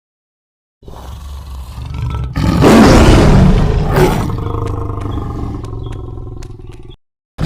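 Tiger roar sound effect: a single long roar that starts about a second in, swells to its loudest a few seconds in, then slowly trails off with a few faint clicks and cuts off just before the end.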